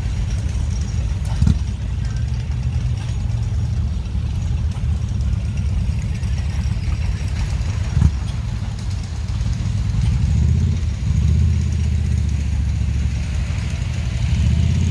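An engine idling steadily with a low rumble, broken by two sharp knocks, one about a second and a half in and one about eight seconds in.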